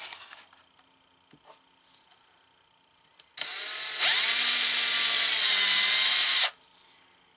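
Cordless drill pre-drilling pilot holes for a cabinet latch. It starts a little over three seconds in at a lower speed and steps up to a steady high whine about half a second later. It runs for about two and a half seconds more, then stops abruptly.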